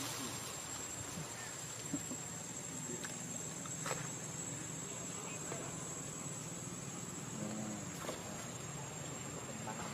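Steady high-pitched insect drone, with a few faint clicks.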